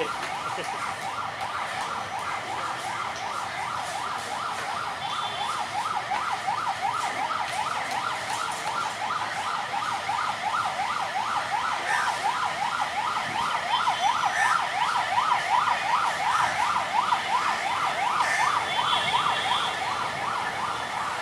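Electronic siren yelping: a rapid rising wail that repeats evenly several times a second, growing somewhat louder toward the middle.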